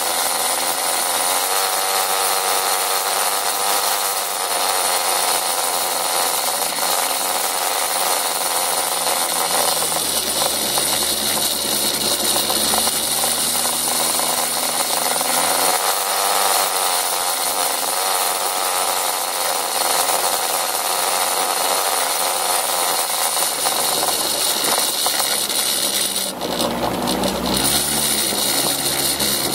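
Motor scooter's small engine buzzing as it rides along a gravel track, its pitch rising and falling with the throttle, with a brief dip about three seconds before the end.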